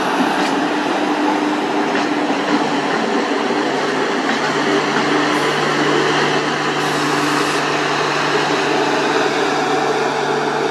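Passenger train running past at speed: a WAP-4 electric locomotive and then LHB coaches, with a steady rolling noise of wheels on rails. From about three and a half seconds in, a steady low hum joins as the luggage-brake-and-generator car with its onboard generator goes by.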